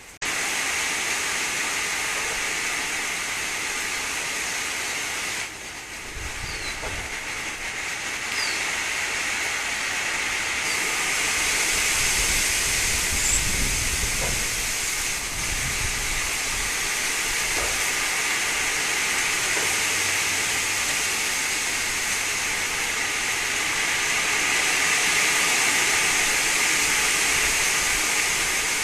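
Strong wind rushing through garden trees and foliage as a steady loud hiss, with gusts buffeting the microphone in low rumbles between about six and sixteen seconds in. A few faint bird chirps sound through it.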